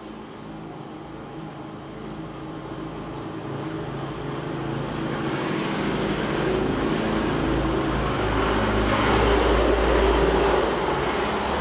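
A motor vehicle's engine running nearby, growing gradually louder as it approaches, loudest about nine to ten seconds in, then easing slightly.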